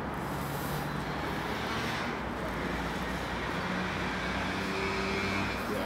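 Steady hum of road traffic, a wash of engine and tyre noise.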